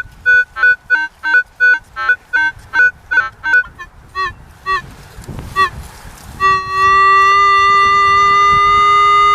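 Minelab CTX 3030 metal detector giving a strong target signal: quick short beeps, about three a second, whose pitch jumps between a few notes, thinning out after a few seconds, then about six and a half seconds in a steady held tone.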